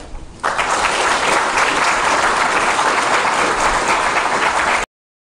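Audience applauding, starting about half a second in and holding steady, then cut off abruptly near the end.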